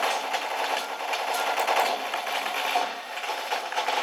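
Attack Shark K75 mechanical keyboard's keys clattering in a rapid, continuous run of clicks as they are pressed during gaming.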